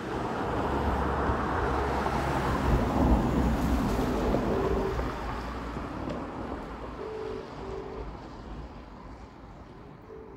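A vehicle passing on a wet road: tyre hiss and low rumble swell to a peak about three seconds in, then fade away slowly.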